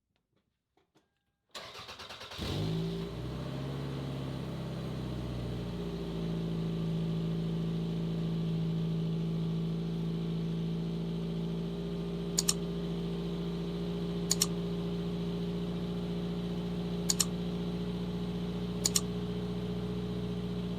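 Toyota Camry engine cranking briefly on the starter, catching about two and a half seconds in, revving up and settling into a steady idle. Four sharp double clicks sound over the idle in the second half.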